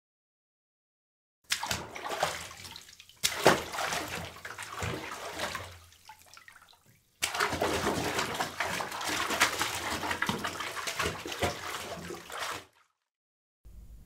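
Water sloshing and splashing in a bathtub, in two stretches: the first starts about a second and a half in and fades out around six seconds, the second runs from about seven seconds until shortly before the end.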